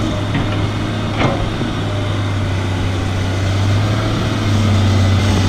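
Large hydraulic excavator's diesel engine running steadily under working load while digging a trench, a low, even drone with a couple of light knocks in the first second or so. The engine gets slightly louder near the end.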